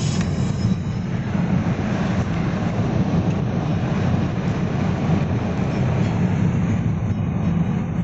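Steady low rumble of a road vehicle on the move, heard from inside: road, tyre and engine noise with wind, holding at an even level.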